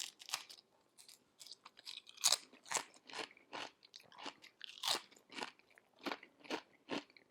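A person crunching and chewing Paqui One Chip Challenge tortilla chips with the mouth, short dry crackles about two to three times a second.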